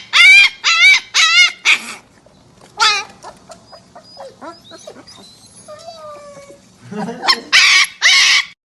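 A puppy giving high-pitched, wavering yelps. Four come in quick succession, another follows about three seconds in, then soft squeaks, and two more loud yelps come near the end.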